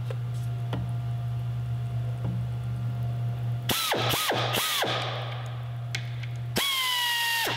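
Flex Arm tapping arm running a tap into a 10-32 blind hole in an aluminum part: its motor whines with a hiss in three short bursts about four seconds in, then one longer run near the end, its pitch sagging slightly as it works. A steady low hum sits underneath.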